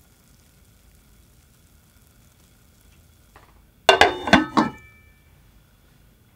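Glass lid set down on a non-stick frying pan: a quick clatter of several clinks lasting under a second, about four seconds in, with a brief ring after.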